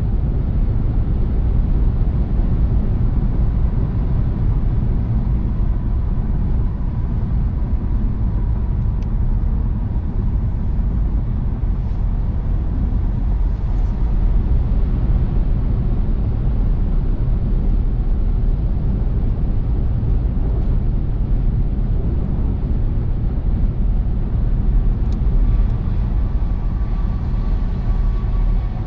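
Car cruising on the autobahn: a steady, deep rumble of road and tyre noise with engine sound, unchanging throughout.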